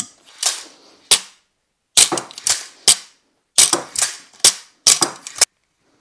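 A quick run of about a dozen sharp snaps and clacks from a compound crossbow being shot and worked, with bolts striking a foam 3D target. The snaps come in uneven clusters and stop about half a second before the end.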